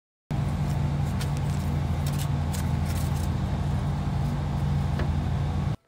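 Steady low mechanical hum of a running motor, with a few light clicks over it; it cuts off suddenly near the end.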